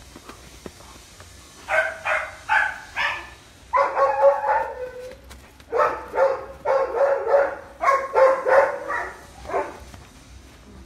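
A dog barking over and over: four barks about half a second apart a little after a second in, then runs of rapid barks, and one last bark near the end.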